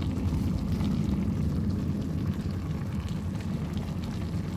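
Chicken and ash gourd curry simmering in a metal kadai on the stove: a steady low rumble with faint scattered bubbling ticks.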